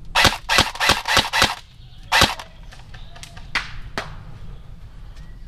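Cyma CM040b AK-105 airsoft electric gun firing single shots: five sharp cracks in quick succession, then one more about a second later, followed by a few fainter clicks.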